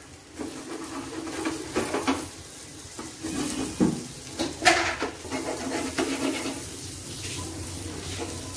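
Spatula cutting a frying egg and tomato omelette into pieces in a non-stick frying pan: several separate scrapes and taps against the pan over light sizzling oil.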